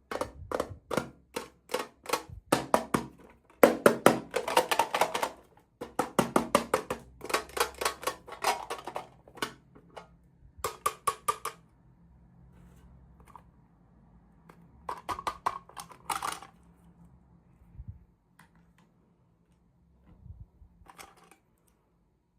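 Plastic packaging and small plastic toy pieces handled at close range: rapid runs of sharp clicks and crackles come in bursts for about the first half, then a few scattered clicks.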